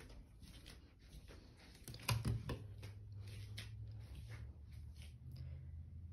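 Footsteps and rustling handling noise from a handheld phone carried through a house, with two louder knocks about two seconds in, after which a steady low hum sets in.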